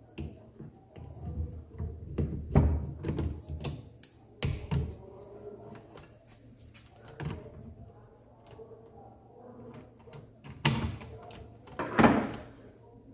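Metal engine parts and tools being handled on an opened Hero Splendor Plus motorcycle engine crankcase: scattered clicks, taps and knocks. A cluster of louder knocks comes a couple of seconds in, and two sharper ones come near the end.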